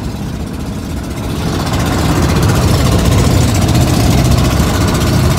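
Engine of a wooden motorised passenger boat running steadily while under way, a loud low rumble that grows louder about two seconds in.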